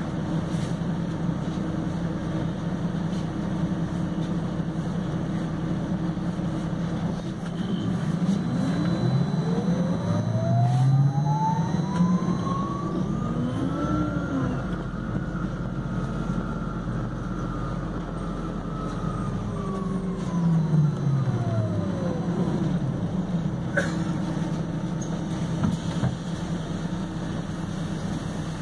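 Inside a MAN Lion's City Hybrid series-hybrid bus: the electric traction motor's whine rises in pitch as the bus pulls away, peaks at the middle, then falls away again as it slows, over the bus's steady low running drone. A single sharp click comes near the end.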